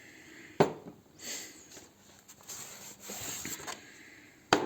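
Two sharp knocks, one about half a second in and a louder one near the end, with soft rustling handling noise between them.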